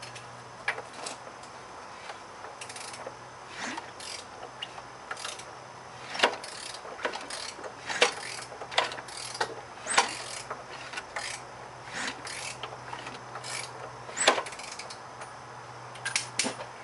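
1997 Chevy Cavalier 2.2-liter four-cylinder engine turned over slowly by hand with a ratchet: ratchet clicks and irregular sharp knocks as the thrown connecting rod clunks around in the crankcase. A handful of the knocks stand out loudest, spaced a second or more apart.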